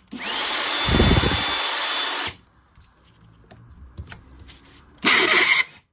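Makita DJR176 cordless reciprocating saw's motor triggered twice. It whines up and runs harsh and noisy for about two seconds, then gives a shorter half-second burst near the end, with small clicks between. This is the sound of stripped gears: the armature's pinion teeth are worn off and the drive gear below is damaged.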